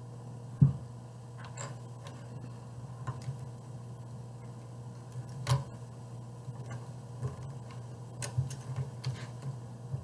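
Small plastic Rubik's cube kit pieces clicking as they are handled and fitted together by hand, with a sharper knock about half a second in and a cluster of clicks near the end. A steady low hum runs underneath.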